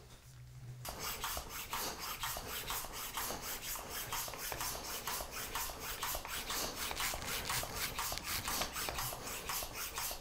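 Hand bicycle pump being worked in quick, even strokes, about four pulses a second, starting about a second in. It is partly inflating a fatbike inner tube so the tyre spreads and seats evenly on the rim.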